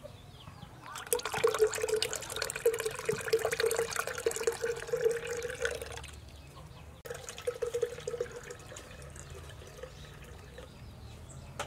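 Milk poured from a can in a thin stream into a glass pitcher of liquid: a steady trickling splash with a held ringing note. It breaks off about six seconds in, then resumes and grows fainter.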